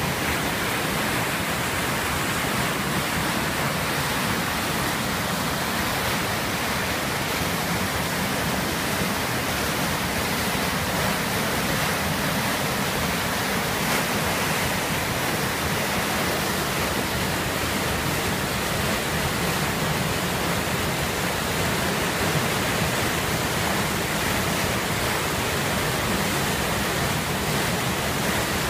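Water rushing steadily out of the sluice openings at the foot of a canal lock gate and churning into the pool below.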